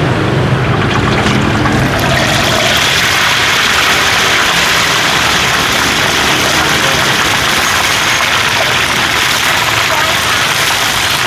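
Busy street ambience: voices talking over a steady noise and engine hum, with a loud hiss coming in abruptly about two seconds in and holding.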